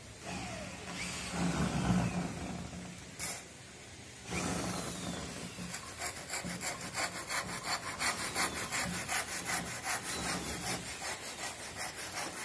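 Wood being worked by hand with quick back-and-forth scraping strokes, like sawing or rasping. The strokes come uneven at first and settle from about six seconds in into a steady rhythm of about four or five a second.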